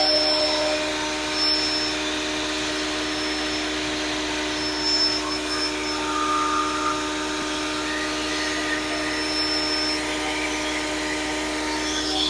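Grizzly G0958 8-inch jointer/planer combo running in planer mode, a steady motor and cutterhead hum with constant tones.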